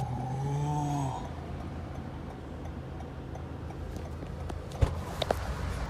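A brief voiced sound in the first second, then a steady low hum, then a sharp thump near the end followed quickly by two clicks.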